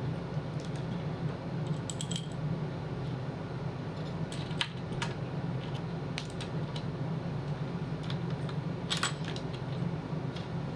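Scattered light clicks and taps from handling small PC-building parts on a desk, a handful over several seconds, over a steady low hum.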